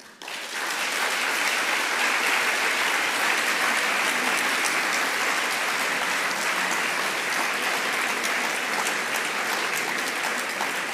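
An audience applauding. The clapping swells up within the first second, holds steady, and eases slightly near the end.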